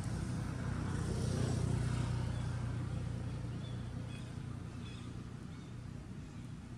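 A motor vehicle engine running steadily, swelling to its loudest about a second and a half in and then fading away as it passes.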